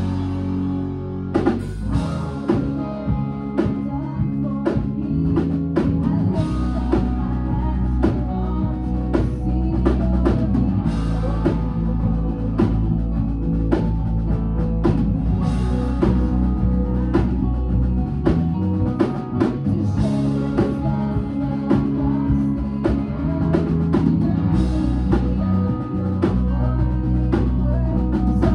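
A band playing a rock song at rehearsal: a drum kit keeps a steady beat over bass and guitar, with no break.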